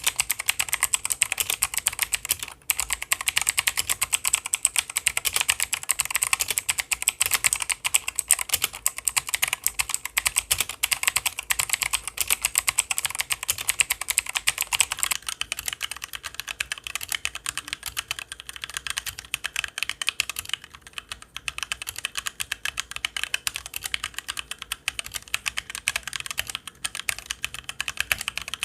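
HyperX Alloy Origins mechanical gaming keyboard being typed on fast, a dense, continuous run of key clicks that gets quieter about halfway through.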